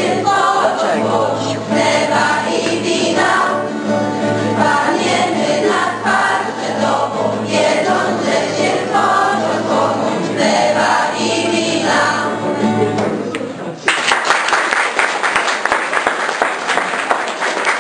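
Children's choir singing a Polish Christmas carol (kolęda) to acoustic guitar accompaniment. The song ends about three-quarters of the way through, and applause follows at once.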